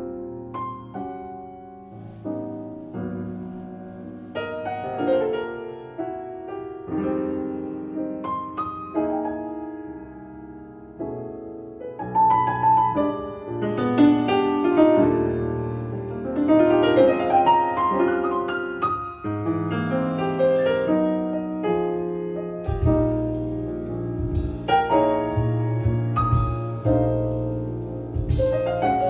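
Piano music played back through a Yamaha CA-2000 stereo amplifier. Solo piano at first; about three-quarters of the way through, a bass and other instruments join and it gets louder.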